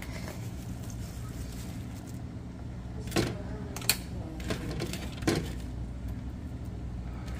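A wooden spoon knocking against the rim of a metal pot of dhal about four times in quick succession midway through, over a steady low hum.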